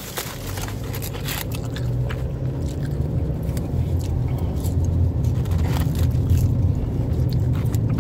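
Low rumble of a car heard from inside the cabin, growing louder over the first few seconds. Scattered crackles and clicks of the cardboard food box and paper wrappers being handled.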